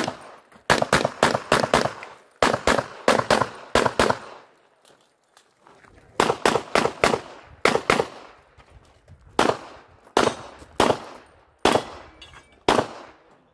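Pistol shots fired rapidly in quick pairs and short strings, with a pause of about a second and a half near the middle of the string.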